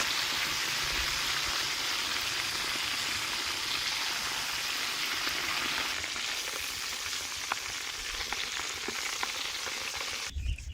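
Squid coated in tempura batter deep-frying in hot cooking oil: a steady sizzle with small crackling pops, easing slightly partway through and cutting off suddenly near the end.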